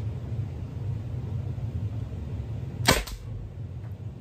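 A Byrna SD CO2-powered launcher fires once, about three seconds in: a single sharp pop as it shoots a .68-calibre Duke solid glass-breaking projectile. A steady low hum runs underneath.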